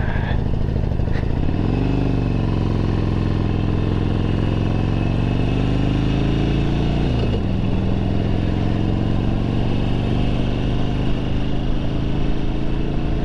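Harley-Davidson Sportster 1200 Low's air-cooled V-twin pulling away from a stop and accelerating. The pitch climbs, drops sharply about seven seconds in as it shifts up a gear, then climbs again.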